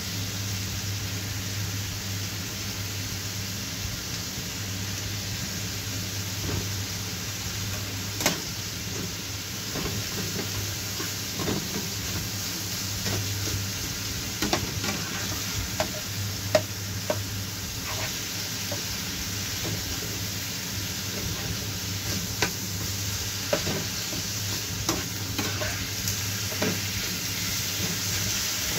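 Sliced beef and onions sizzling in a frying pan, with scattered clicks and scrapes of a spatula stirring them, over a steady low hum.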